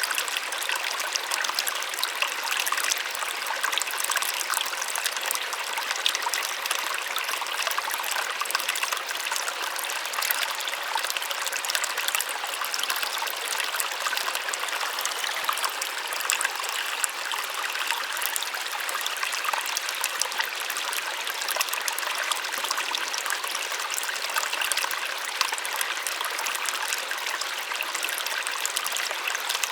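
Small waterfall splashing, a steady soft hiss of falling water with fine splashy detail and no low rumble.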